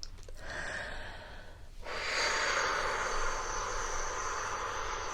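A woman's slow breathing: a soft breath in, then, about two seconds in, a long, steady breath out.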